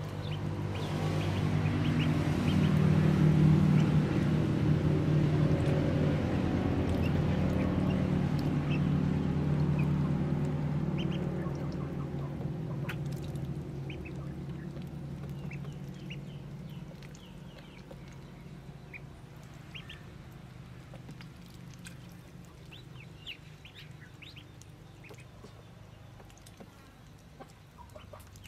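Ducklings peeping in short high chirps, with other fowl calling. A low drone underneath is loudest in the first ten seconds and fades away by about seventeen seconds in.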